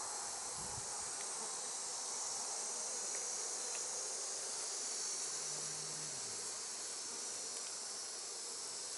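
Honeybees from an open hive buzzing steadily in a dense, continuous swarm hum.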